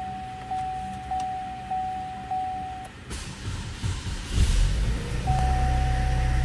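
Electronic dashboard chime sounding a single tone about every 0.6 seconds, stopping about three seconds in. The 2013 Buick Regal's 2.0L engine then cranks and catches about four seconds in and settles into a steady idle, while the chime starts repeating again.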